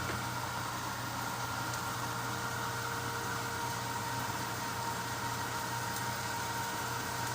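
A steady mechanical hum with an even hiss, holding unchanged throughout.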